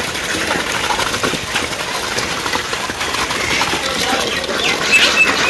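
Several ducks dabbling at feed in a metal bowl: a rapid, steady clatter of bills against the bowl as they eat.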